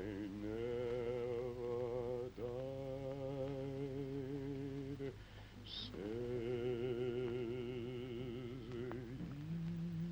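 Deep male voice singing slow, long-held notes with a wide vibrato, no clear words, in four drawn-out phrases with short breaths between.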